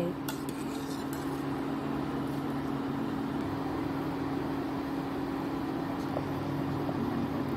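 Large steel pot of salted water with basmati rice and whole spices at a rolling boil: steady bubbling over a low, even hum, with a light click or two near the start.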